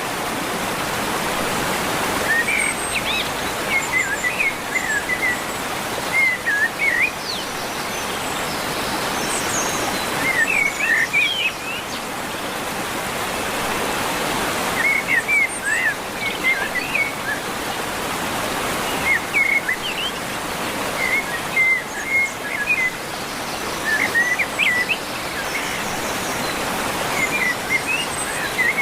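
Steady rush of water, like a waterfall, with small birds chirping over it in short quick phrases that come every second or two.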